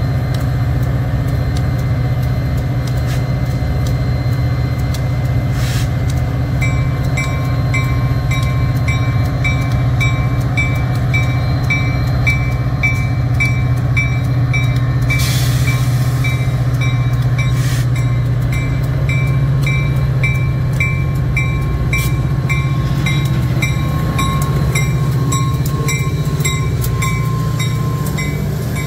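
A train running past with a steady low drone. About seven seconds in, a regular high ringing starts, about two strokes a second, and keeps on over the train.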